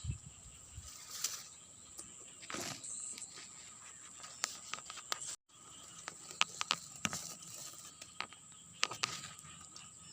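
Steady high-pitched drone of insects with scattered small clicks and taps. Everything cuts out for a moment about halfway through.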